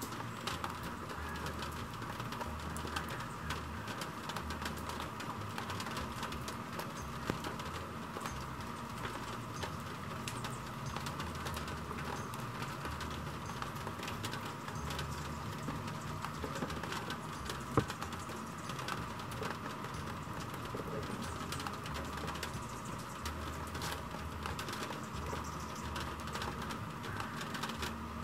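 Steady rain falling, with many scattered drops ticking, and birds calling in the background.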